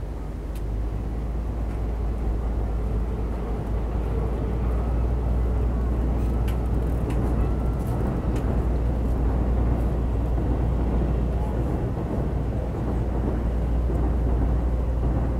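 Steady low rumble of city road traffic, a little louder from about a second in.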